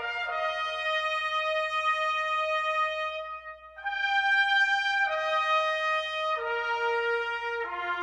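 Background music: a slow brass melody of long held notes, one note at a time, the pitch changing every second or few.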